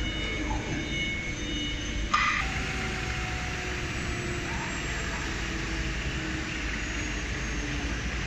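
Twin-spindle woodworking CNC router running: a steady mechanical hum with a sharp click about two seconds in, followed by a faint tone that slowly falls in pitch.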